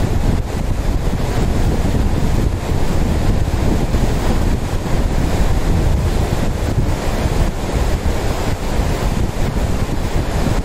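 Lidder River's fast, shallow water rushing over a rocky bed, a steady even rush with no break, with wind rumbling on the microphone underneath.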